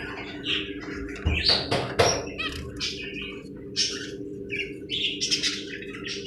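Budgerigars chattering with many quick, overlapping chirps and warbles, over a steady low hum.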